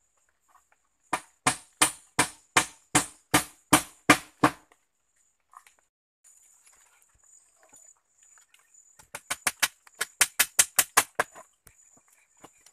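Repeated tool strikes on the wooden poles of a stick-built cage trap: a run of about ten blows at roughly three a second, a pause, then a faster run of about a dozen.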